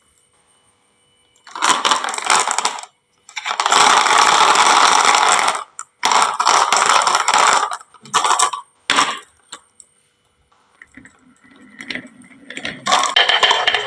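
Glass marbles rolling down a wooden marble-run slope, a rattling rumble in four or five runs of one to two seconds each, separated by short silences, with fainter clatter near the end.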